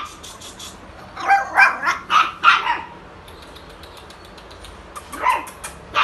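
Spitz puppy barking in short, high yaps: four in quick succession about a second in, then another couple near the end.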